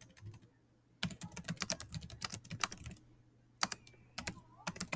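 Typing on a computer keyboard: quick runs of key clicks, broken by two short pauses.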